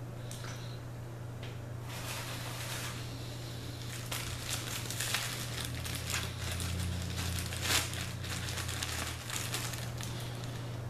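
Clear plastic bag of popcorn crinkling as it is picked up and handled, in irregular rustling bursts that start about two seconds in and die down near the end.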